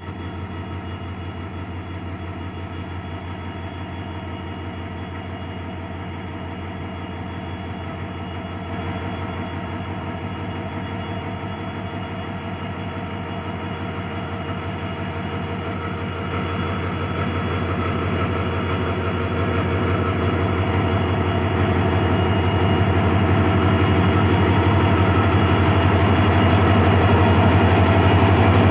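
Indian Railways WDG4D diesel freight locomotive's 16-cylinder two-stroke EMD engine humming: a steady low drone with a fine even pulse, growing gradually louder.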